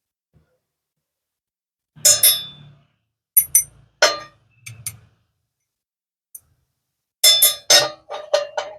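Pieces of metal knocking and clanking together, each knock ringing briefly. They come in irregular clusters: a few strikes about two seconds in, then a quick run of several near the end.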